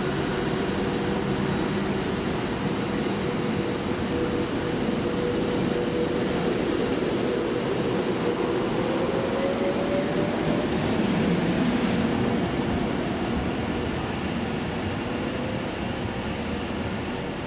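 Virgin Trains Class 390 Pendolino electric train moving along the platform: a steady rumble of wheels and running gear with an electric whine that rises a little in pitch about halfway through.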